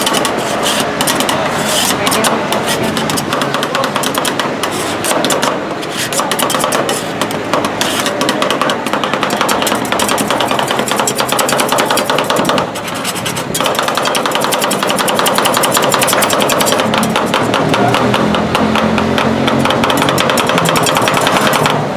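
Two metal spatulas rapidly chopping, tapping and scraping on the steel cold plate of a rolled ice cream machine as the ice cream mixture is mashed and spread thin. The fast clatter of blade on steel runs on with a brief lull about halfway through.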